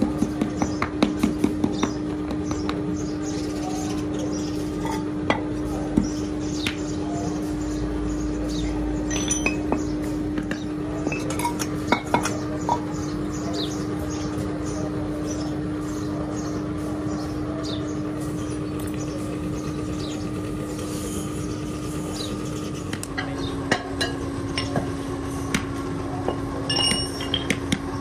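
Metal clinks and knocks of a hand tool and hands working against a steel sand-casting flask as casting sand is packed and rammed into the mould, over a steady hum. A quick run of clicks comes in the first couple of seconds, then scattered sharper knocks.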